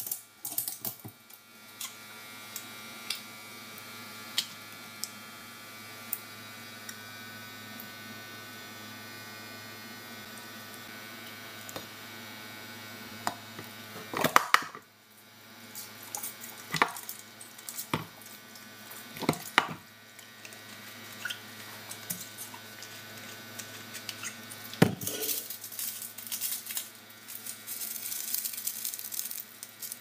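Kitchen handling sounds from an aluminium cooking pot: scattered knocks and clinks against the pot over a steady electrical hum. A wrapper crinkles over the last few seconds as a seasoning sachet is opened.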